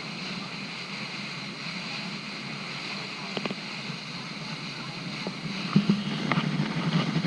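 Boat under way: the steady low hum of its motor under a rush of wind and water, with a few light knocks around the middle and near the end.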